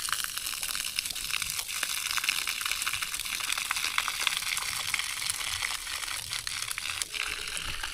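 Water running out of a garden hose pipe in a steady hiss with small crackles: the pipe is flowing freely, the ice that had frozen inside it now melted.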